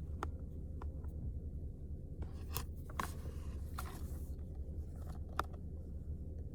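Stylus tip tapping and drawing on an iPad's glass screen: a handful of light, scattered taps over a steady low hum.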